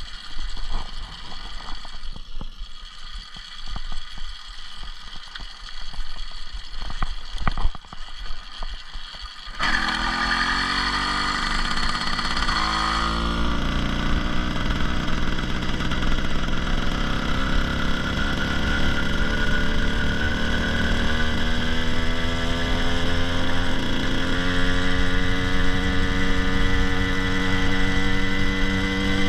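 A few light knocks and rattles, then about ten seconds in an 80cc two-stroke motorized-bicycle engine fires and keeps running steadily, its pitch rising slowly as it picks up speed.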